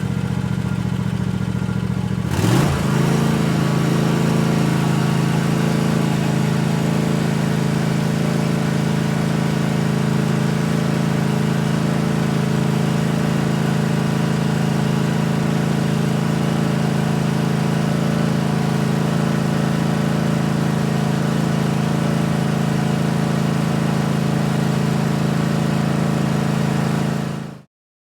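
Zero-turn lawn mower's small engine idling steadily. About two seconds in, its pitch briefly shifts before it settles back into an even idle. The sound cuts off near the end.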